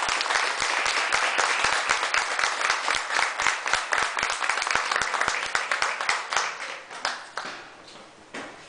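A small group of people applauding with hand claps, dying away about seven seconds in.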